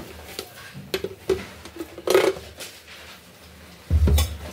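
Steel spoon and dishes clinking and knocking as a spoonful of ghee is readied: a few light clinks, a louder clink about two seconds in, and a heavy low thump near the end.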